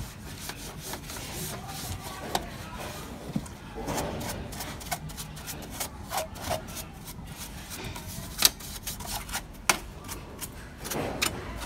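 A cloth rubbing and wiping over the plastic rear cover of an HP Color LaserJet Pro M177fw printer to clean off dust, an irregular scratchy rubbing with scattered clicks. Two sharp taps stand out, at about eight and a half and nearly ten seconds in.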